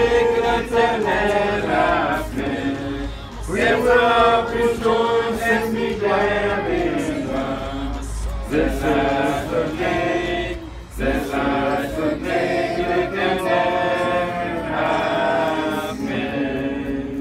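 A group of people singing together without instruments, voices holding long notes in phrases a few seconds long.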